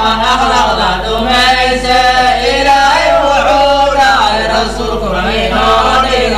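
Islamic nasheed: layered voices chanting a gliding melody between sung verses, over a steady low hum.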